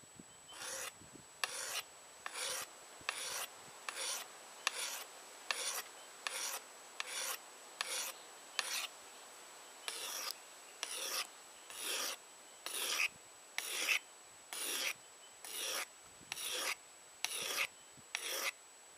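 A hand-held whetstone stroked along a tomahawk's steel blade, giving short rasping scrapes at about two a second, with a short pause about nine seconds in.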